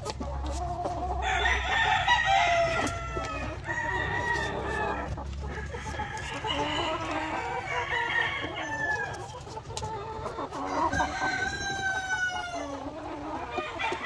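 Chickens clucking and calling continuously, several calls overlapping, with a longer, higher call near the end.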